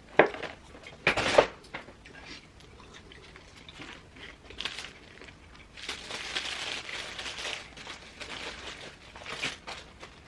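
Paper food wrapper crinkling and rustling as a burger is unwrapped and handled. There are a few sharp crackles in the first second and a half and a longer stretch of rustling later on.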